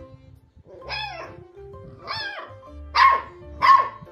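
Puppy barking: two high, pitched yelps that rise and fall, about a second apart, then two sharp, louder barks near the end, over background music.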